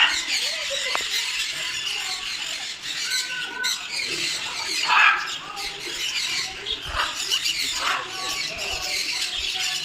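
A flock of birds chattering, with constant high chirps and squeals and louder squawks about five seconds in and again near eight seconds.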